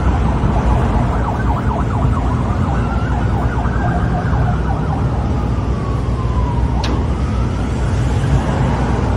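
A siren-like wail that slowly rises and then falls, over a loud steady rumble, with one sharp click near the end.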